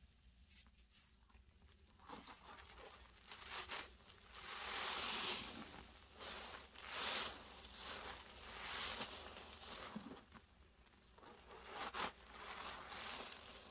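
A kitchen sponge loaded with Comet cleansing powder and liquid is squeezed and kneaded by a gloved hand, giving gritty, wet crackling and squishing in several bursts as the foamy paste works through it. The first two seconds or so are quiet.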